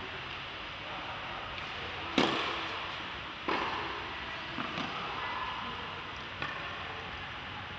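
Tennis balls struck with rackets and bouncing on the court: a few sharp pops that echo through the large indoor tennis hall. The loudest comes about two seconds in, the next a second and a half later, and fainter ones follow.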